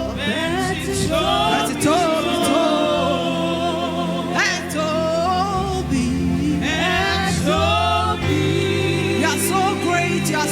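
Gospel worship music: voices singing melodic, held lines over sustained keyboard chords.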